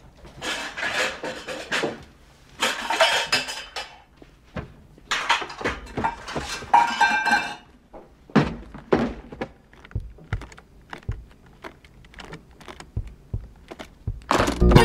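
Rummaging and clinking of objects in a cupboard, then knocks and a run of small sharp clicks as a briefcase is handled and its locks are worked.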